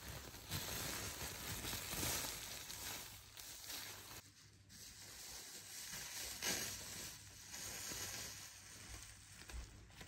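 Dry chopped straw rustling and crunching as it is scooped by hand into a woven plastic sack, along with the sack's crinkling. It comes in uneven surges, with a brief lull about four seconds in.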